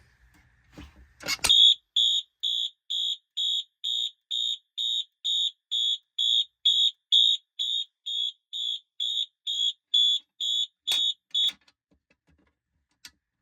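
Fire alarm sounding a high-pitched pulsing beep, a little over two beeps a second, for about ten seconds. A click comes just before it starts, and it cuts off with a few clicks near the end.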